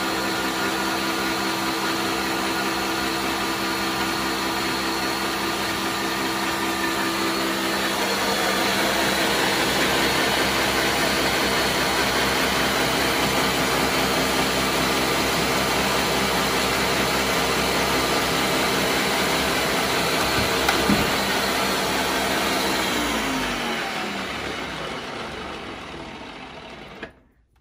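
Ninja countertop blender running steadily at medium speed, whirring through thick hollandaise sauce as hot melted butter is poured in to emulsify it. Its tone shifts about eight seconds in, and near the end the motor winds down and stops.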